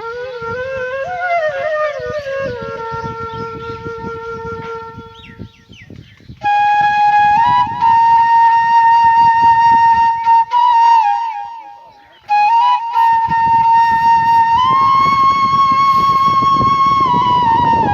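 Background music: a flute melody with long held notes joined by slides and quick ornaments, pausing briefly twice.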